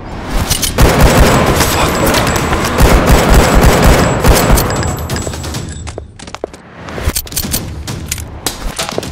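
Rapid pistol gunfire: a dense volley of overlapping shots for about the first five seconds, then a brief lull and a string of separate shots in quick succession.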